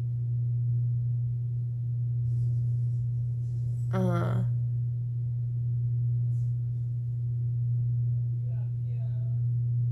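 A steady low hum, unchanging throughout, with a short bit of a woman's voice about four seconds in.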